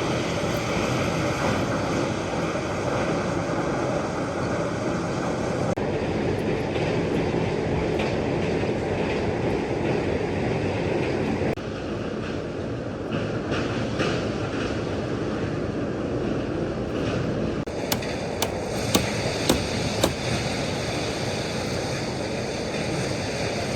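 Concrete mixer running steadily, its drum churning the mix with a continuous rumble, with a few sharp clanks a little past the middle.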